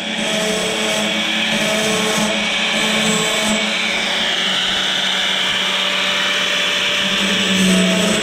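A motor-driven tool runs steadily while grinding a sawmill band blade's teeth, a constant hum under a rasping grind of metal.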